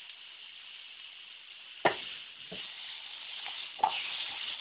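Sliced mushrooms frying in hot oil in a pan, a steady sizzle, with a few sharp knocks about two seconds in and again near the end.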